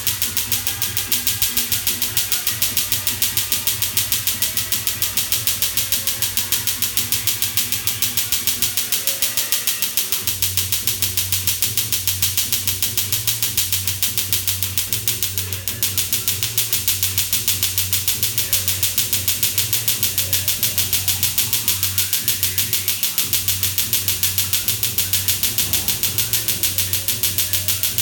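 Tattoo-removal laser firing a steady, even train of sharp snapping pulses against the skin. A low machine hum runs underneath and grows louder about ten seconds in.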